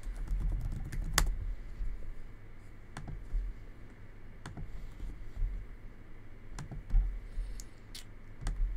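Scattered clicks of a computer mouse and keyboard, a handful of sharp, irregularly spaced taps.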